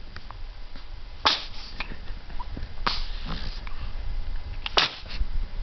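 A baby sneezing three times, each sneeze short and sharp, spaced about one and a half to two seconds apart.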